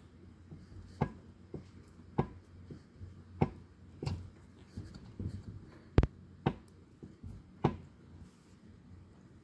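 Sharp metallic clicks and knocks at irregular intervals of roughly a second, the loudest about six seconds in, from the splined input shaft being worked by hand in the front pump of a Chrysler A-904 TorqueFlite transmission. A low steady hum sits under them.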